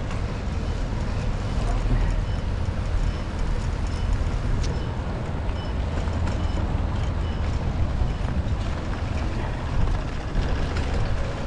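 Steady road noise of a bicycle ride through wet city streets in the rain, with wind rumbling on the microphone.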